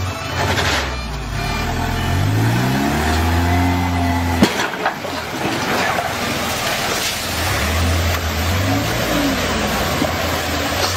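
Toyota forklift's engine revving up in a rising whine, then a sharp knock a little over four seconds in as the forklift breaks through the pond's low wall. A rush of pouring water follows while the engine revs again.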